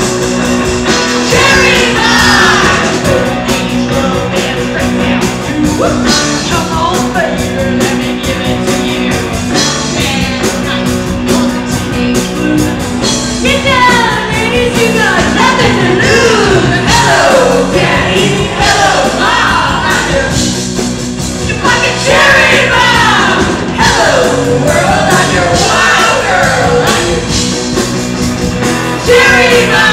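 Live rock band playing, with women singing lead over electric bass and drums.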